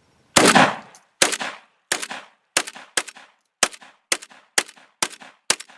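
JTS AK-47-style semi-automatic 12-gauge shotgun firing a full 10-round magazine in rapid succession, about two shots a second, each with a short echo. The first shot is the loudest. Every shell cycles without a jam.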